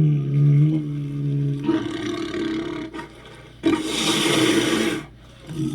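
Spinosaurus roar sound effects: a low, pitched roar turns into a rougher growl, then about two-thirds through comes a loud, harsh, hissing roar lasting over a second that cuts off sharply. Another roar begins near the end.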